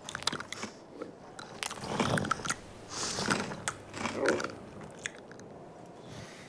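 Camel chewing on a paintbrush: crunching, clicking chewing sounds that come in a few bunches of bites.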